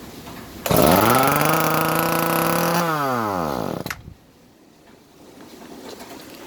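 Echo CS-305 two-stroke chainsaw engine catching, running at a steady speed for about two seconds, then dying away with a falling pitch. It does not rev up because the throttle is stuck. A single sharp click follows.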